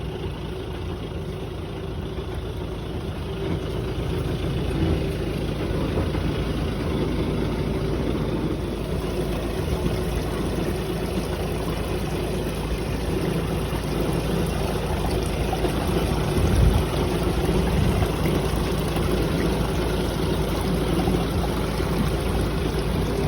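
High-pressure jetting truck's engine and pump running steadily, a low drone with a constant rushing noise over it.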